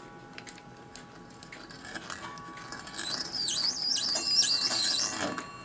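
A reamer in a clock bushing machine cutting out a worn pivot hole in a clock movement plate. A few faint clicks come first, then a high, wavering squeal of the cutter in the metal starts about three seconds in and fades after about two seconds.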